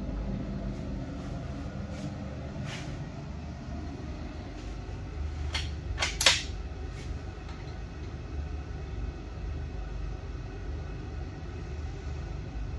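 Handling of a .308 hunting rifle in a shooting rest: scattered sharp clicks, then a quick cluster of clicks and a louder clack about six seconds in. A steady low hum runs underneath.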